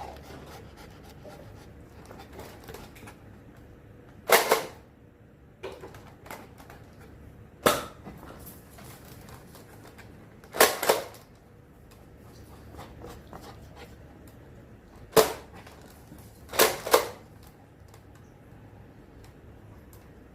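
A series of short, sharp clacks or pops, six in all, about three to four seconds apart, two of them quick doubles.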